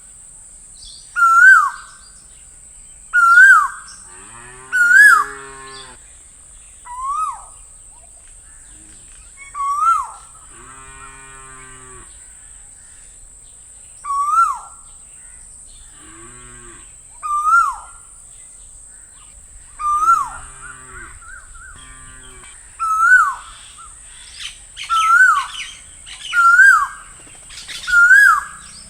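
Asian koel calling over and over, each call a short note that rises and then drops, repeated every one to three seconds. A deeper, lower-pitched call breaks in five times, and a steady high hiss runs underneath.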